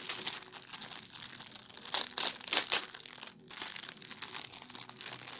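Thin clear plastic bag crinkling and rustling as it is handled while the crochet hooks are taken out of it. The crackles run on throughout, loudest a little past the middle, with a brief pause about three and a half seconds in.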